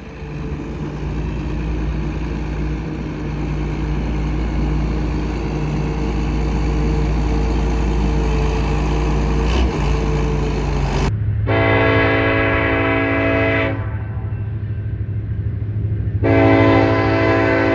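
Steady low engine rumble, then a train locomotive's air horn sounds two long chord blasts, the first about eleven seconds in and the second near the end, over a steady low diesel hum.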